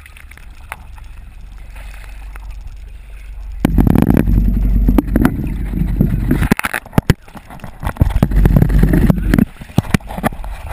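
Water splashing and sloshing around a GoPro in its waterproof housing, with sharp knocks and bumps as the camera is handled. It gets much louder about four seconds in.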